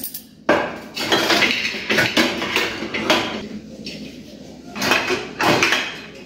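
Metal pressure cookers and their lids clattering and knocking together as they are handled and set into place: one long spell of clatter, then a shorter one near the end.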